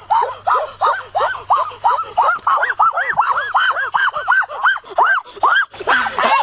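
Goose honking in a rapid, unbroken series, about four short rising-and-falling calls a second.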